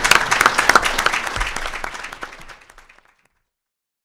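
Audience applauding, thinning out and cut off abruptly about three seconds in.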